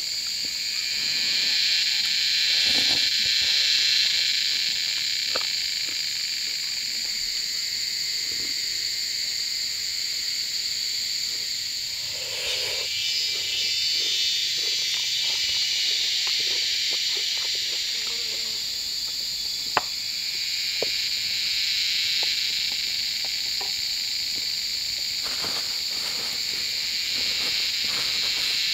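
A steady, high-pitched chorus of calling animals, frogs or insects, swelling louder early on, about halfway, and again through the last third. A few light clicks and knocks sound over it, the sharpest about two-thirds of the way in.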